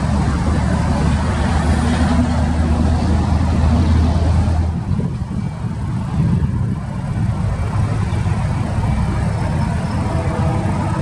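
Diesel freight locomotives running, a low steady rumble. The loudest rumble stops abruptly about five seconds in, and a lighter, even engine sound carries on.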